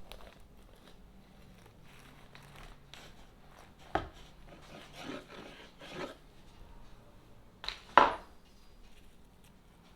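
Kitchen sandwich-making sounds: utensils and food scraping and rubbing, with a sharp knock about four seconds in and a louder double knock about eight seconds in.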